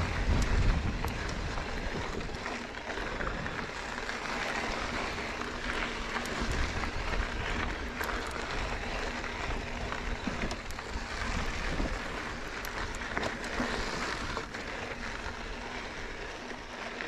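Knobby electric mountain bike tyres rolling and crunching over a dry, gravelly dirt trail on a climb, with scattered small clicks of grit and stones. Low wind rumble on the microphone near the start.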